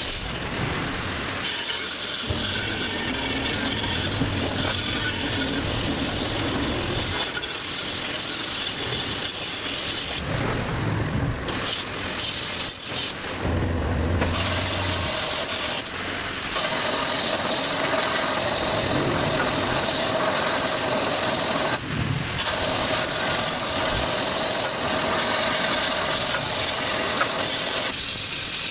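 Steady rasping, grinding noise of metal repair work on a mini excavator's pin bushing, breaking off briefly a few times.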